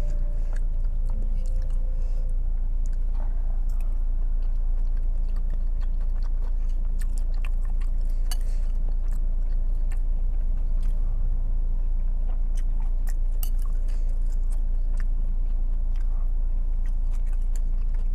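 Close-up chewing and biting of meatballs from a bowl of bakso soup, with scattered light clicks of metal spoons against the bowl, over a steady low hum.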